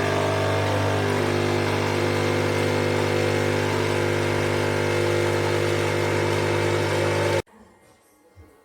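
Krups Nescafé Dolce Gusto Mini Me capsule coffee machine's pump running while brewing, a loud steady buzzing hum that cuts off suddenly about seven and a half seconds in.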